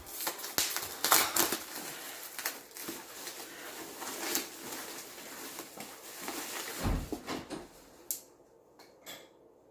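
Cardboard and plastic packaging being handled: rustling with sharp clicks, loudest in the first couple of seconds, and a dull knock about seven seconds in.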